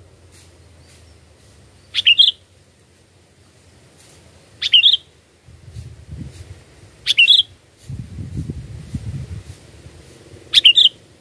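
Sooty-headed bulbul (kutilang) giving four short, sharp calls a few seconds apart, with a low rumble in the background between the middle calls.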